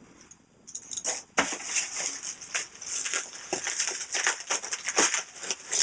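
Packaging crinkling and rustling as items are handled and unwrapped, with many quick crackles, starting about a second in.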